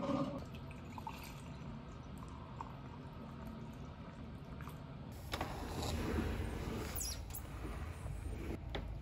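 Coffee being poured from a glass carafe into a mug, ending just after the start, then faint small clicks. About five seconds in, a steady low rumble of outdoor air comes in, with a few sharp clicks.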